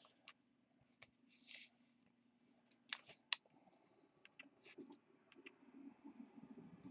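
Trading card being handled with a clear plastic sleeve: faint rustling and a scatter of small clicks, the two sharpest about three seconds in.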